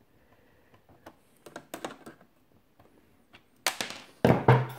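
Small clicks and taps of needle-nose pliers working a screw out of the plastic shell of a Fisher-Price Alpha Probe toy, with a few louder knocks near the end.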